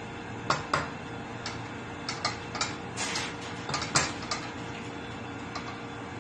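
A wooden spoon stirring food in a stainless steel pot, knocking and scraping against the pot: a run of irregular clicks and knocks, the loudest about half a second in and at about four seconds, with a short scrape in between.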